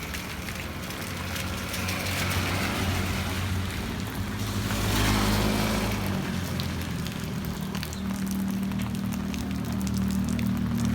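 Heavy rain falling, with the low hum of a motor vehicle engine that grows louder near the end as it draws closer.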